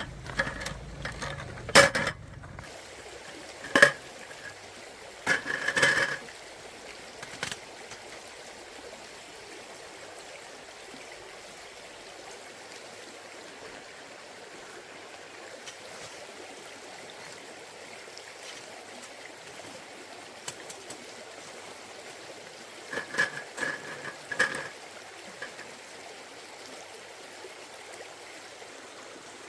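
A stream running steadily, with scattered sharp clinks of metal cookware and utensils: several in the first few seconds, a couple more a few seconds later, and another short cluster near the end.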